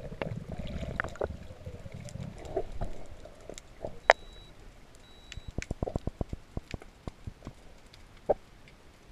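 Underwater sound picked up through a camera's waterproof housing. For the first few seconds there is a low, muffled rumble of water movement. Then come scattered sharp clicks and knocks, a quick run of them past the middle, and one loud click near the end.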